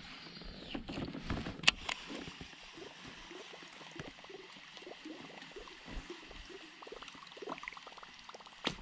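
Faint water lapping and gurgling around a fishing kayak while a baitcasting reel retrieves a topwater lure, with one sharp click under two seconds in. At the very end comes a sudden loud splash: a bass striking the lure, which the angler calls vicious.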